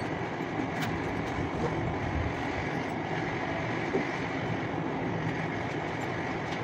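Steady rushing, humming mechanical noise with a faint high whine over it, as of fans running in a room, with a light tick or two.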